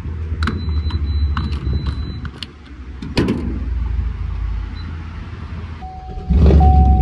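Wind rumbling on the microphone, with light clicks in the first two seconds and a sharp knock about three seconds in. Near the end, a steady chime tone sounds and the Chevrolet Silverado's engine starts, the loudness jumping into a strong low rumble that keeps running.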